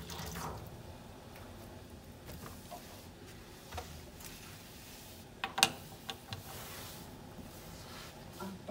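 Small brush scrubbing a stainless-steel kitchen sink, faint, with a few sharp knocks a little past halfway.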